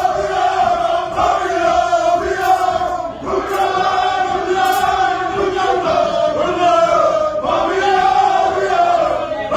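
A group of men chanting in unison, in loud sung phrases with short breaks between them.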